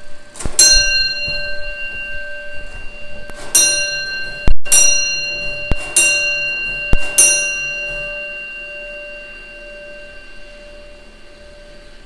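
Gamewell fire alarm bell striking the code of box 14: one stroke, a pause of about three seconds, then four strokes about a second apart, each ringing on and dying away. Sharp mechanical clicks come with the strokes.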